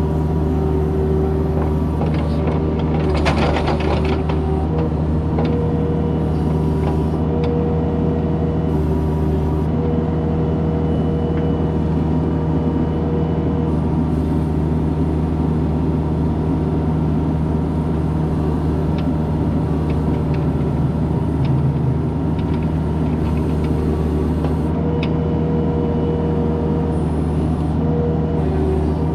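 Kubota compact excavator's diesel engine running steadily under digging work, with a higher tone that comes and goes. A short rattle of clanks comes about three seconds in.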